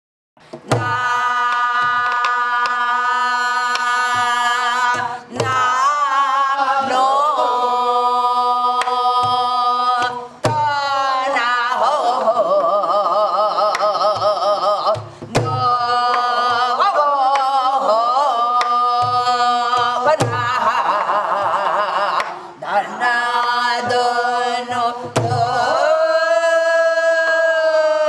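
A woman sings wordless Korean gueum, long held notes on open syllables such as "na" and "neo" with wide vibrato and sliding bends. A buk barrel drum struck with a stick keeps a gutgeori rhythm under the voice, with a low thump every second or so.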